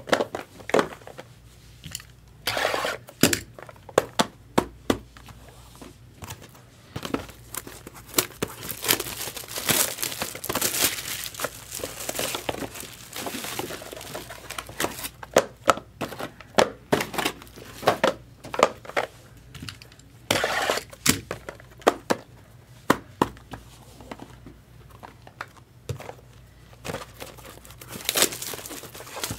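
Trading-card box and pack packaging crinkled and torn open by hand, with many short clicks and taps of cardboard and cards being handled.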